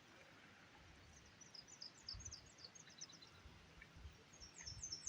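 A faint songbird singing two quick runs of short, high, down-slurred notes, the second starting near the end, over near silence.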